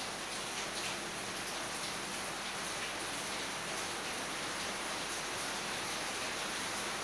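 A steady, even hiss with no meows, growls or other cat calls.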